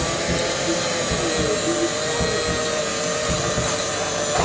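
Electric hand mixer running, its beaters whisking cake mixture in a bowl: a steady motor whine.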